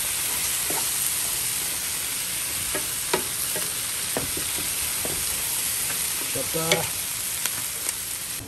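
Sliced meat, onions and bell peppers sizzling in a stone-coated frying pan while a wooden spatula stirs them, with scattered light knocks and scrapes of the spatula on the pan, the loudest about seven seconds in.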